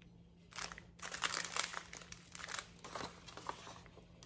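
Small plastic bags of diamond-painting drills crinkling as they are handled and sorted, in irregular bouts, from about half a second in until it dies down near the end.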